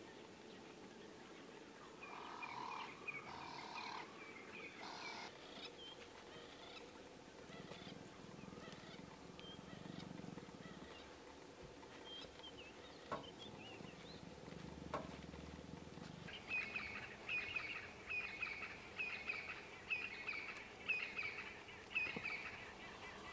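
Birds calling: a few short calls in the first seconds, then, in the second half, a run of short chirping notes repeated about twice a second.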